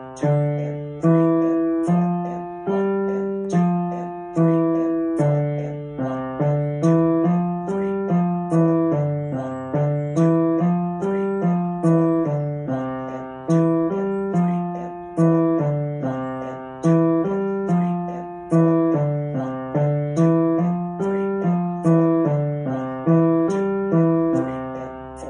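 Piano playing a simple rhythmic piece: notes and small chords in the low-middle range struck at a steady beat, about two a second, each dying away before the next.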